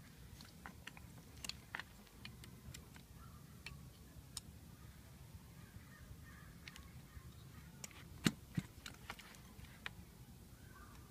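Scattered small clicks and taps of a screwdriver and metal parts being handled on a car alternator, the sharpest about eight seconds in. Faint bird calls in the background.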